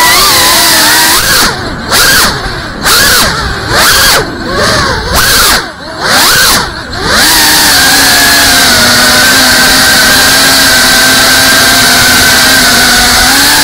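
FPV quadcopter's brushless motors and propellers whining at close range. In the first half the whine drops and surges about six times in quick succession as the throttle is chopped and punched. It then holds a steady pitch through the second half.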